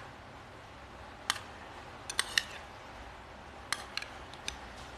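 Metal spoon clinking against a small glass dish as sambal is spooned into it. It makes about seven short, sharp clinks, a few of them in quick succession.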